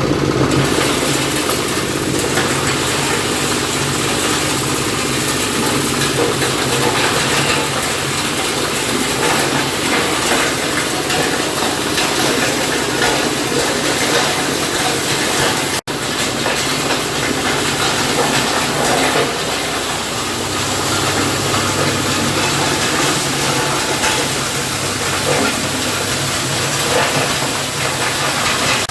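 Hard-soil grinding machine running: a steady motor drone under a dense, hissing mechanical grinding noise, with a momentary break about sixteen seconds in.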